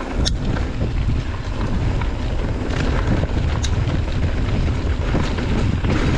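Wind rushing over the microphone and mountain-bike tyres rumbling over a trail while riding at speed, with a few sharp clicks, one about a third of a second in and another a little under four seconds in.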